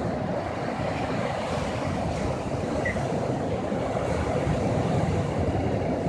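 Sea surf breaking on a sandy beach: a continuous rush of waves.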